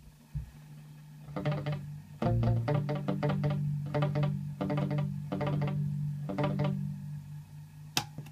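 Guitar notes played through an Evans ES-1 Echo Chorus unit, each note answered by echo repeats about every 0.6 s that slowly fade. A sharp click near the end as a switch on the unit is pressed.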